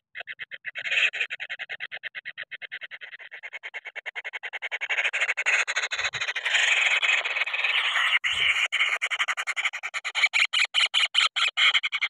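Kingfisher nestlings giving a fast, harsh rattling call of about ten pulses a second, growing louder about halfway through, with two soft low bumps in the middle. It is the agitated, angry calling of chicks that have been disturbed.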